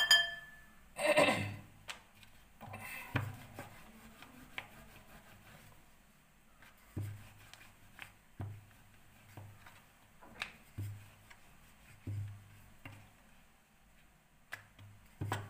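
Wooden rolling pin rolled back and forth over thin dough discs on a wooden board, making soft low rumbles about once a second with scattered light knocks of wood on wood. There is a louder clatter about a second in.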